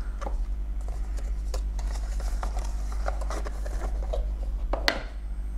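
Hands handling unboxing packaging: light rustling and small taps from the plastic-wrapped USB-C cable and the cardboard box, with one sharp tap about five seconds in, over a steady low hum.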